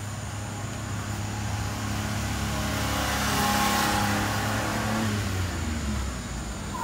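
A motor vehicle's engine passing by, with a low hum that grows louder to a peak about halfway through and then fades away.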